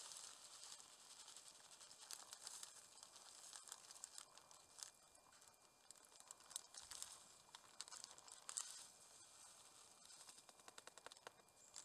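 Faint crinkling of a plastic zip-top bag as dry food is shaken out of it into a mug, heard as many small irregular crackles.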